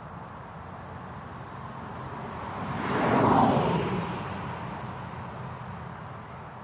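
A road vehicle passing by: its noise swells to a peak about three seconds in, then fades away.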